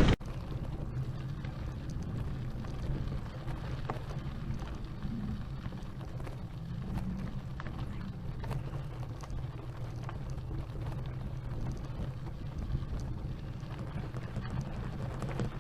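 Gravel bicycle rolling over a dirt and gravel road: a steady low rumble from the tyres, with scattered small clicks and rattles of stones.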